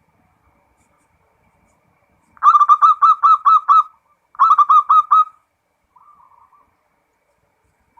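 Zebra dove (perkutut) cooing: a loud run of quick rippling notes lasting about a second and a half, a brief pause, then a shorter run of about a second, followed by a faint soft trill.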